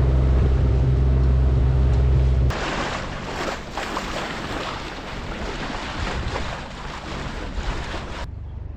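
Sailboat's engine running steadily under way. About two and a half seconds in it cuts off abruptly to rushing wind and water, with irregular gusts and splashes.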